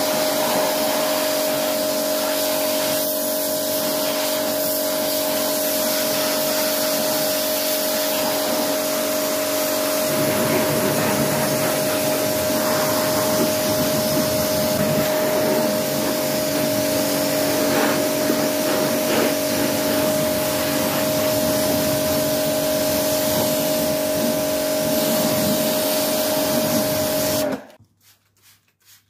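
Pressure washer running steadily, with a constant motor hum under the hiss of its water jet spraying the wheel arch and brake disc; it cuts off suddenly near the end. After it, a few faint, evenly spaced squirts of a trigger spray bottle follow.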